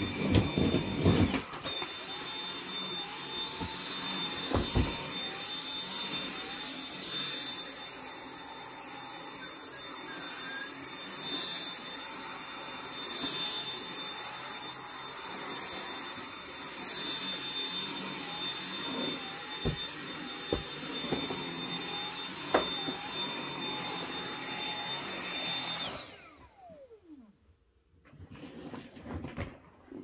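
Cordless stick vacuum running on carpet with a steady high whine. About 26 seconds in it is switched off and the motor's whine falls away as it spins down.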